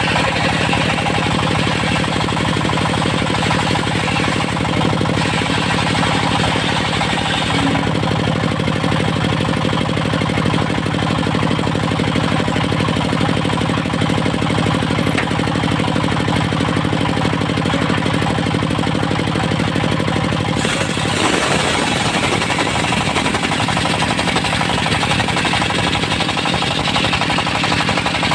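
Engine-driven circular sawmill running loud and steady, its engine pulsing rapidly throughout. About three quarters of the way in the sound turns rougher and hissier, and the steady engine hum breaks up.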